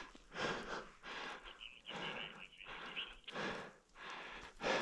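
A person breathing hard and rhythmically, about three breaths every two seconds.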